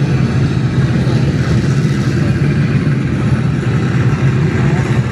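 Nitromethane-fuelled drag racing engine of a cackle car running loud and rough at a steady idle, the cackle of a nitro car fired up for show.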